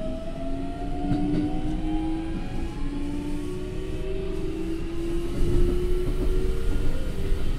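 Toyo IGBT VVVF inverter and traction motors of a Keikyu 1500 series train whining with a rising pitch as the train accelerates, heard from inside the car over the steady rumble of the wheels on the rails. The track noise grows louder about two-thirds of the way through.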